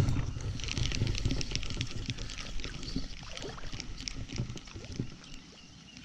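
Water splashing and sloshing in a shallow creek, with dense irregular crackle. It starts suddenly, is loudest in the first couple of seconds, and tapers off.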